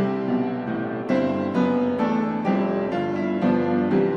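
Background piano music: single notes and chords struck one after another at an unhurried pace.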